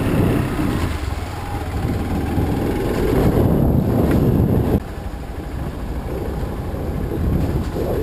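Hero XPulse 200 dirt bike's single-cylinder engine running while riding a muddy trail. The sound is loud and steady and drops suddenly a little past halfway.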